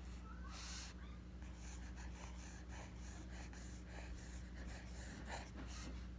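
Mechanical pencil lead scratching across ruled notebook paper in quick, irregular strokes as cursive letters are written, over a steady low hum.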